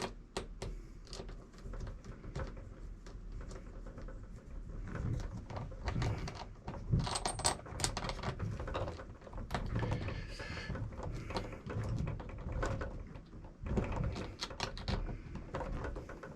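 Irregular small clicks, taps and rustles of hands working on a 1/10-scale RC truck's wheel: plastic and metal parts knocking lightly together as a tire and rim are fitted.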